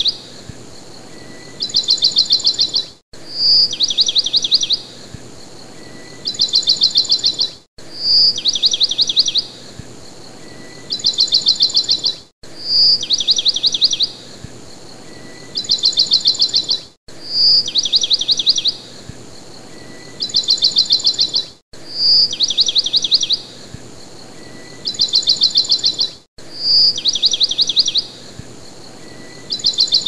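Songbird song in a repeating loop: a short high note, a quick trill of about ten notes, a pause, then a louder trill. The whole phrase repeats about every four and a half seconds, with a brief break at each repeat.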